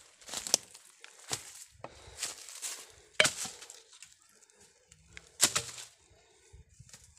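Footsteps walking on a forest path: irregular steps about one a second, a few of them louder.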